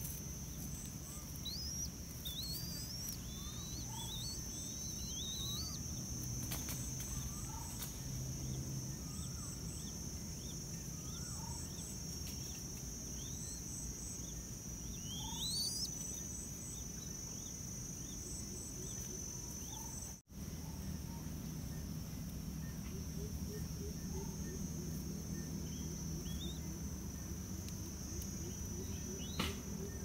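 A steady high insect drone, with short rising chirps from small birds scattered through it and a low rumble underneath.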